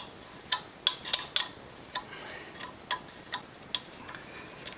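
Sharp metallic clicks and taps, irregularly spaced at a few a second, from hand tools knocking against the steel parts of a Hummer H3's front suspension.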